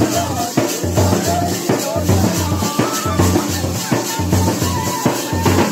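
Live folk dance music: snare-type drums played with sticks in a fast, steady beat, with a wavering melody line over the drumming.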